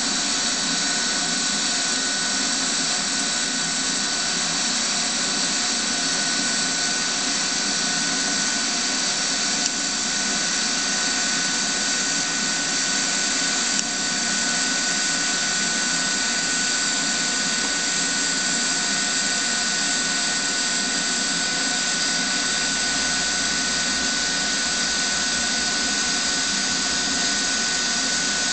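TIG welding arc burning steadily on stainless steel, powered by an Everlast inverter welder: an even hiss with a thin steady high whine. It dips briefly twice, about ten and fourteen seconds in.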